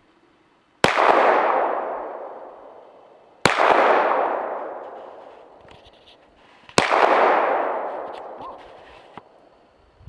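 Sig Sauer P226 pistol fired slowly, three sharp shots about three seconds apart with a fourth at the very end, each followed by a long fading echo.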